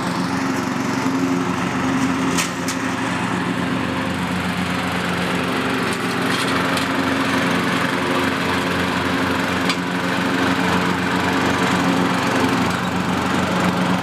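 Early-1990s Murray riding lawn mower's engine running steadily as it is driven, with a few sharp ticks now and then.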